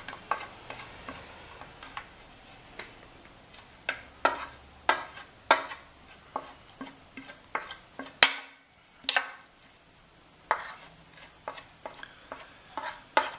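Metal spoon scraping and tapping against a plastic plate, knocking ground spices off into a glass bowl: an irregular run of sharp clicks and scrapes, the loudest two a little past the middle.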